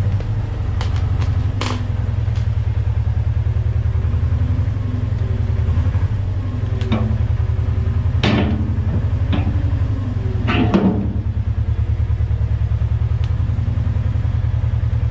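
Loader engine running steadily with a low, even throb, while the loader arms hook onto a bucket with several metal clanks, the loudest two about 8 and 11 seconds in.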